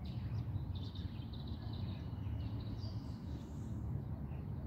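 Outdoor background: faint small birds chirping over a steady low rumble of ambient noise.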